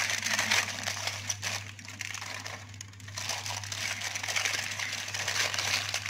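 Aluminium foil crinkling and crackling as hands fold it and tear it along an edge, over a steady low hum.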